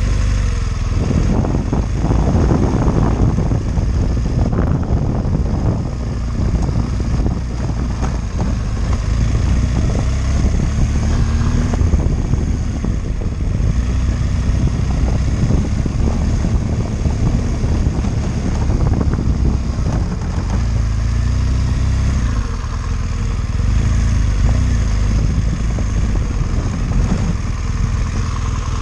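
BMW R1200GS boxer-twin engine running at low revs on the move, its pitch rising and falling with the throttle. Knocks and rattles come through as the bike rolls over a rough dirt track.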